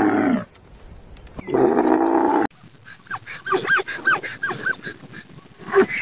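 A Bactrian camel's low, drawn-out bellow, falling in pitch as it ends just after the start, then a second bellow that cuts off abruptly about two and a half seconds in. After that comes a zebra's barking call, a quick run of short yelps that each rise and fall in pitch.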